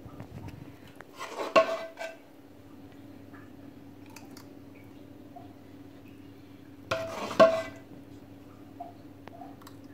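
Dishes clinking as a bowl knocks against drinking glasses while custard milk is poured into them: two short clusters of clinks with a brief ring, about five seconds apart, over a faint steady hum.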